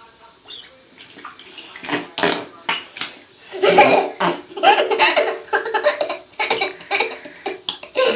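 Bath water splashing and bubbling with fart-like noises, and from about halfway through a toddler's laughter and squeals.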